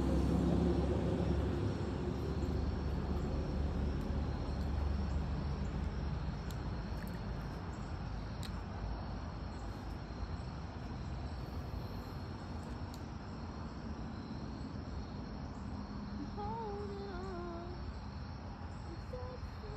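Outdoor pond ambience: a steady high insect trill, typical of crickets, over a low rumble on the microphone that is heaviest in the first few seconds and then eases. A faint wavering call or distant voice comes through near the end.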